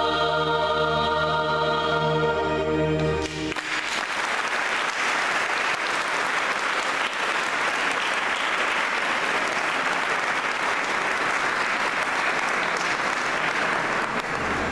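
A church choir holds its final chord, which cuts off about three and a half seconds in, and the audience breaks into steady applause for the rest of the time.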